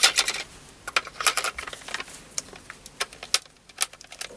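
Irregular sharp clicks and taps of a plastic handheld endoscope handle being handled, with its battery compartment cap being worked by hand. About a dozen separate clicks, some in quick pairs.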